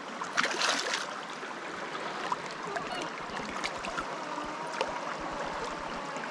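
Small mountain trout stream running steadily over rocks, with a brief louder rush of noise about half a second in and a few small clicks.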